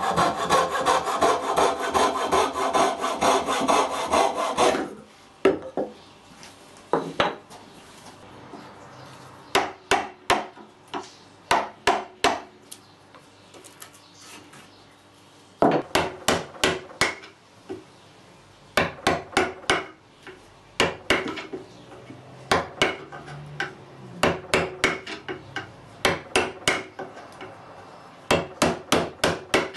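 A coping saw cutting a curve through a wooden board with rapid, steady strokes for about five seconds. After that come groups of short, sharp strokes, a chisel paring and shaping the wood, with quieter pauses between the groups.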